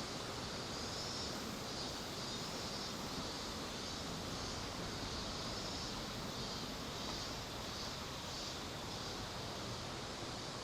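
Cicadas singing in a pulsing chorus that swells and fades about twice a second, over a steady rushing noise.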